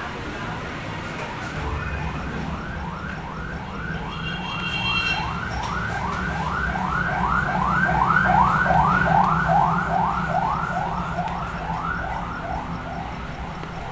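Emergency vehicle siren in a fast yelp, short rising wails about three a second, growing louder to a peak past the middle and then fading as it passes, over a steady low traffic hum.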